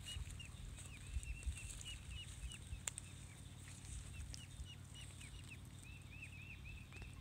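Ducklings peeping: a steady stream of short, high cheeps, several a second, growing denser near the end.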